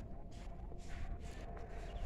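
Footsteps on a paved station platform, a soft scuffing step recurring about every half second over a low background rumble.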